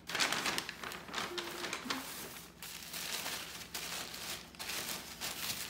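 White tissue paper crinkling and rustling in the hands as it is pulled off a wrapped jar candle.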